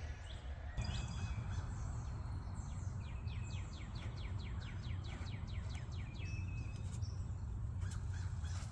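A bird singing a run of about a dozen quick, evenly spaced chirps, over a steady low rumble of outdoor background noise.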